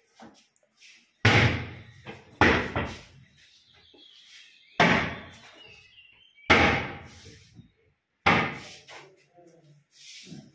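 Lift-up kitchen wall-cabinet doors banging as they are worked by hand: five sharp bangs, one every one and a half to two seconds.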